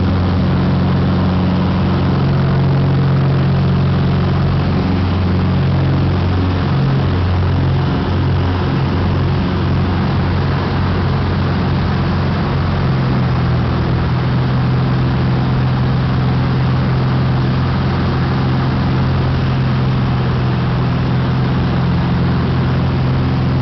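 Light propeller aircraft's engine at takeoff power, heard from inside the cockpit as a loud, steady drone through the grass takeoff roll and into the climb. The engine note wavers for a few seconds in the first half, then settles again.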